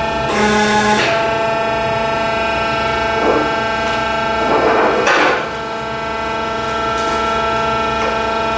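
Hydraulic forging press running with a steady, many-toned hum, with rougher, noisier stretches around three and five seconds in as it squeezes a red-hot Damascus billet made of concrete nails.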